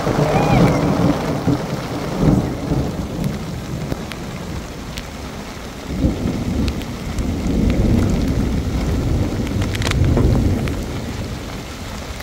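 Rainstorm: steady rain with long low rumbles of thunder, swelling at the start, again about two seconds in, and from about six to eleven seconds.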